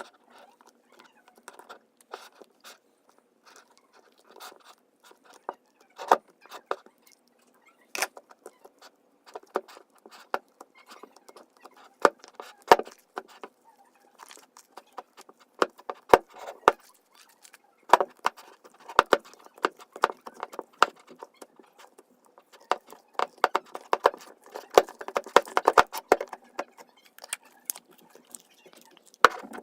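Slime being squished and kneaded by hand: irregular sticky clicks and pops, coming thicker and faster near the end.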